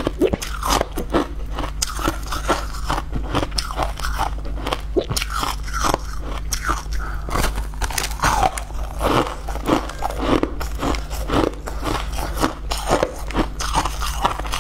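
Biting and chewing chunks off a block of frozen blue crushed ice: a quick, irregular series of crisp crunches that goes on without a break.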